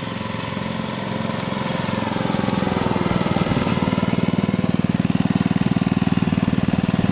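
Briggs & Stratton 5 hp single-cylinder flathead engine on a mini bike, running. It grows louder over the first three seconds, then holds a steady, rapid firing beat.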